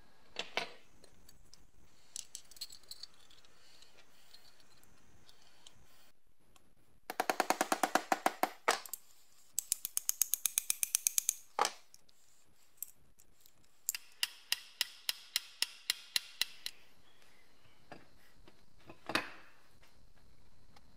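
Small hammer tapping on metal parts in three quick runs of light taps, with a few single knocks between them, seating small pins in chrome-plated brackets.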